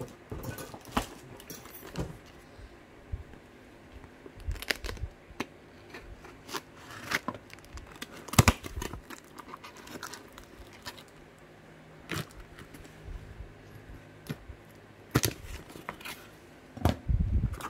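Taped cardboard parcel being torn open by hand: scattered tearing, crinkling and sharp cracks of cardboard and packing tape, with the loudest crack about halfway through.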